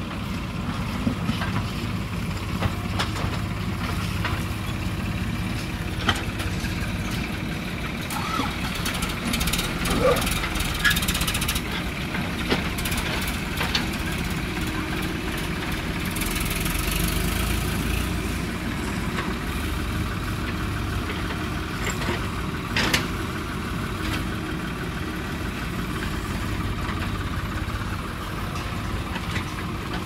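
Diesel engines of a JCB backhoe loader and a farm tractor running steadily, with scattered sharp knocks and clatter. The engine sound swells louder for a couple of seconds about halfway through.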